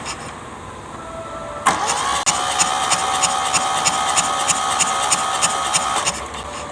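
Electric starter cranking the Kubota D650 three-cylinder diesel: a steady whine with a regular pulse that starts about a second and a half in and stops after about four seconds without the engine running on. This is the hard-starting complaint being tested after the injection pump repair.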